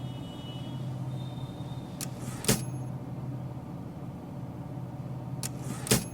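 Two sharp clacks about three and a half seconds apart, each preceded by a fainter click, over a steady low hum.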